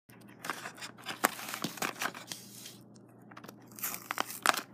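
Crinkling, crackling and tearing of a Littlest Pet Shop mini toy's plastic blister pack and card backing as it is pried open by hand, with irregular sharp clicks and a louder rustle near the end.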